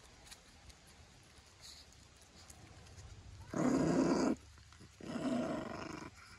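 A dog growling twice, with two rough growls about a second long each, the first one louder.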